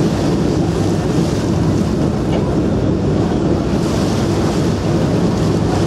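Passenger ferry under way: a steady low rumble with water rushing along the hull and wind buffeting the microphone.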